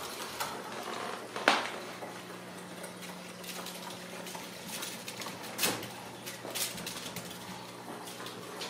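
Scattered light knocks and clatters from Ragdoll kittens scampering and playing on a hardwood floor and rug, the sharpest knock about a second and a half in. A faint steady hum runs underneath.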